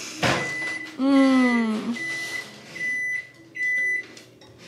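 A woman crying: a sharp breath, then a long whimper falling in pitch about a second in. This is followed by a steady high electronic tone and two even beeps from a kitchen appliance near the end.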